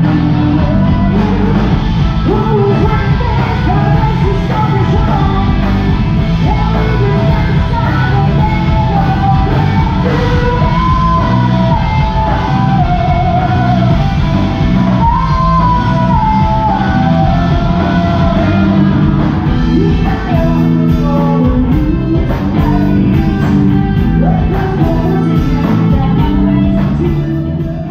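Live rock band playing loudly: electric guitars and a drum kit, with a singer singing into a microphone.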